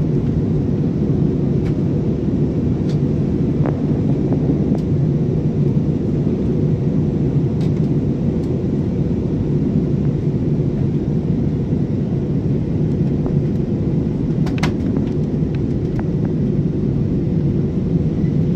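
Steady drone of a plane's engines and rushing air heard inside the passenger cabin, with a few faint clicks.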